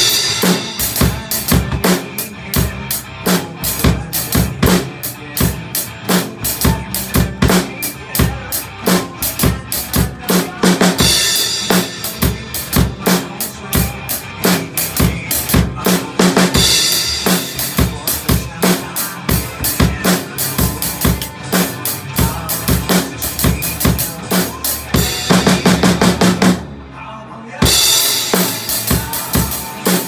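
Acoustic drum kit played at speed: a dense run of snare and bass drum strokes with washes of cymbal, breaking off for about a second near the end before the playing comes back in.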